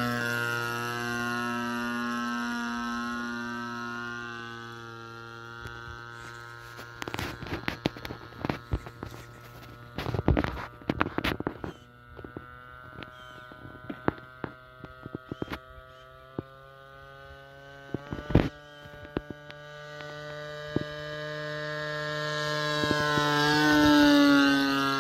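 Single-cylinder two-stroke gas engine of a radio-controlled model airplane running steadily in flight. Its note fades as the plane moves away, then grows louder as the plane passes close overhead near the end. Midway comes a run of sharp clicks and knocks.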